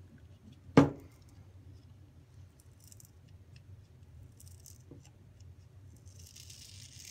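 One sharp knock a little under a second in, then soft rustling and a faint tap: hard objects being handled and set down on a workbench.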